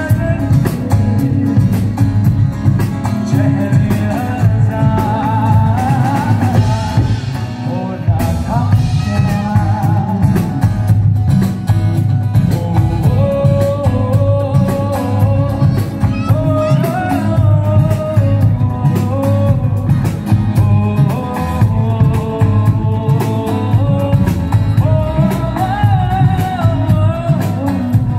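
Live band playing a song: a singer's melody over electric bass, acoustic guitar and drum kit, amplified, with a heavy bass and a steady drum beat.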